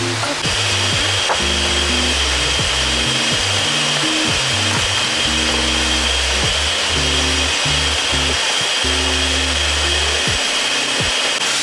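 Background music with low, changing notes over a steady hiss that starts just after the beginning and stops near the end.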